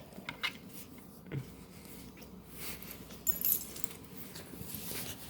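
Puppy snoring, its breath rasping through its nose in a faint, uneven rhythm. A brief metallic jingle comes about three and a half seconds in.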